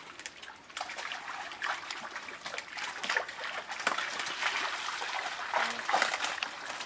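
Fish splashing and thrashing in a crowded net in shallow water, with water trickling and pouring off a scoop net and bamboo baskets as the catch is lifted: a continuous run of irregular splashes and trickles.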